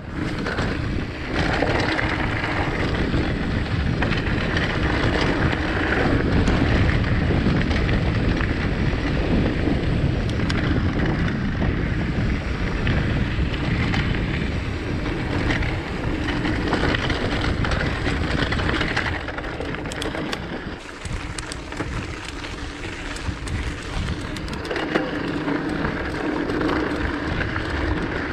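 Rockrider mountain bike ridden along dirt and rocky singletrack: a steady rolling noise of tyres over the ground, mixed with wind noise on the microphone. It eases a little about two-thirds of the way through.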